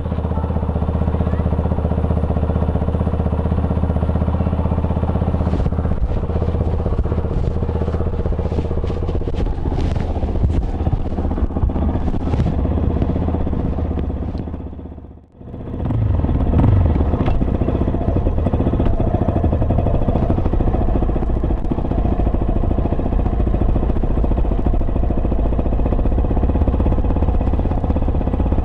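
Yamaha Serow 250's single-cylinder engine running steadily, with a brief drop-out about halfway through.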